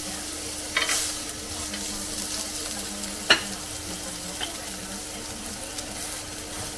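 Steaks sizzling on the plate of a Power XL smokeless indoor electric grill, a steady hiss. A clatter of metal tongs comes about a second in as a steak is turned, and a sharp click comes about three seconds in. A low steady hum runs underneath.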